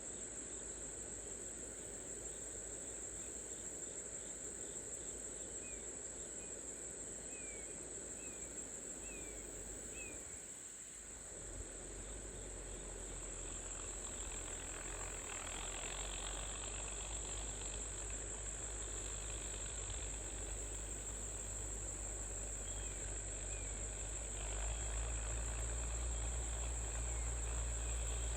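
Steady high-pitched insect chorus, crickets trilling without a break. A low rumble comes in about twelve seconds in and grows louder near the end.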